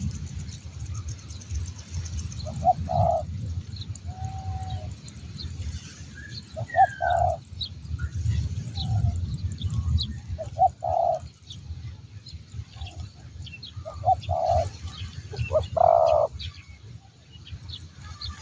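Spotted doves cooing: short phrases of two or three low notes, repeated every few seconds, with faint chirps of small birds in between.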